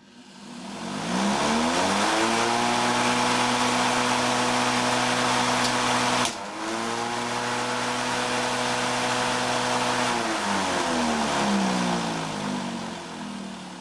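Corded electric lawnmower motor and blade spinning up to a steady whine. About six seconds in, a single sharp crack as a dropped bottle of liquid nitrogen shatters on the mower. The motor then winds down, its pitch falling, near the end.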